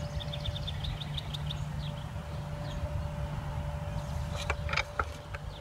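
A small bird sings a quick trill of about ten high chirps in the first second and a half. Under it runs a steady low rumble with a faint steady hum, and a few sharp clicks come near the end.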